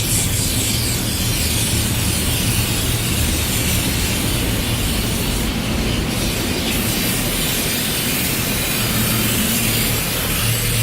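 Automatic car wash machinery working over the car, heard from inside the cabin: a steady, loud rushing noise with a low hum underneath.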